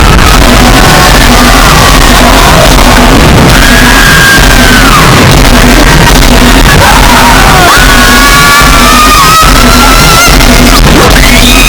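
Very loud, clipped and distorted music, with high-pitched voices gliding and shouting over it.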